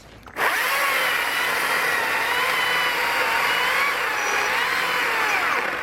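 STIHL battery-powered electric chainsaw starting about half a second in and cutting into a log. Its motor whine wavers and sags in pitch as the chain loads up in the wood, with the battery down to its last bar.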